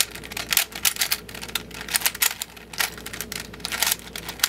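Plastic layers of a 3x3x5 cuboid twisty puzzle being turned quickly by hand: a rapid, irregular run of clicks and clacks as an algorithm inserts a middle-layer piece.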